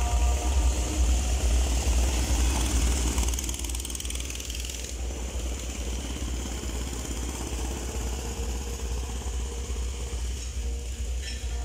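Go-kart engines running as the karts drive round the track. The sound is louder for the first three seconds or so, then drops and holds at a lower steady level.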